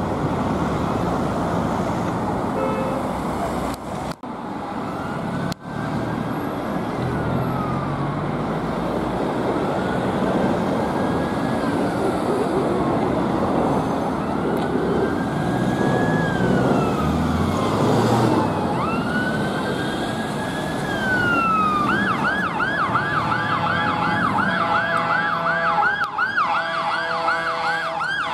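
Fire engine siren on an approaching pump over road traffic: a slow rising-and-falling wail that switches about 22 s in to a fast yelp, about three sweeps a second, with short air horn blasts near the end.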